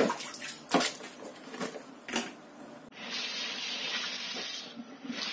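A few sharp knocks and splashes as a plastic bowl is tipped and handled in a sink. About three seconds in, a tap runs steadily into the bowl for about two seconds.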